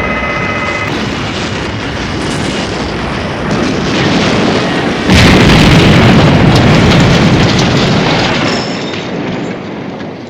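Movie sound effect of a jet airliner crashing and exploding: a dense, continuous rumble, then about five seconds in a sudden, very loud explosion with deep rumbling that dies away over the next few seconds.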